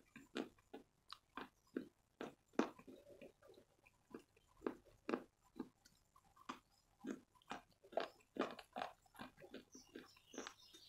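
Close-up chewing and crunching of a white chalk block between the teeth: a steady run of short, sharp crunches, about two to three a second.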